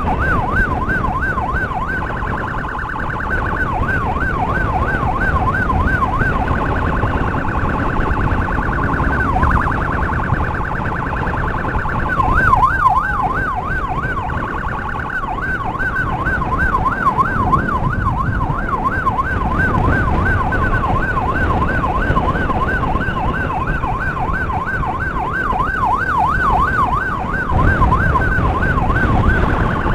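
Electronic emergency siren yelping rapidly up and down, switching between a fast trill and slower sweeps, over a steady road and wind rumble.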